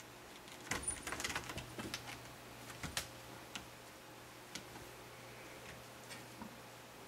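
Light tapping, clicking and rustling as a cat plays with a string toy: a quick flurry of taps about a second in, then single clicks every second or so, over a faint steady hum.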